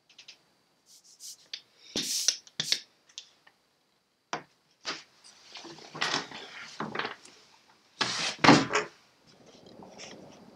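Irregular knocks and clunks of a cast-iron printing press and its lever being worked by hand, with the loudest cluster near the end. A soft, even scratchy sound follows at the very end.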